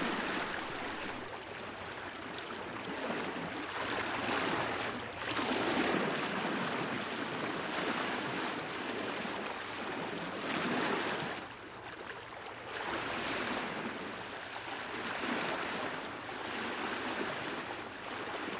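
Sea water rushing and splashing: a steady wash of noise that swells and eases about every two seconds.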